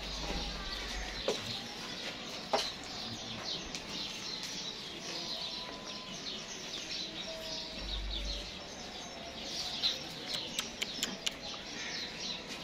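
Many small birds chirping continuously, with a few sharp clicks, several in quick succession near the end.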